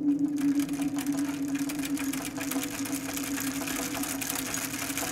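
Bicycle rolling over paving stones, the handlebar-mounted camera picking up a rapid, steady rattling clatter from the bumpy surface, over a steady low hum.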